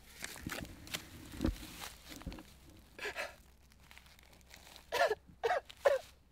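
A man's gasping vocal sounds, three short strained bursts in quick succession about five seconds in, with a lighter one just before. Earlier there is soft rustling of paper and grass with a couple of low thuds as he moves on the ground.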